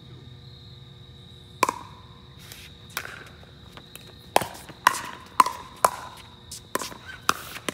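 Pickleball paddles hitting a plastic pickleball during a rally: sharp pops with a short ring. They are spaced out at first, then come quickly, about two a second, in a run of volleys near the middle, with two lighter pops near the end.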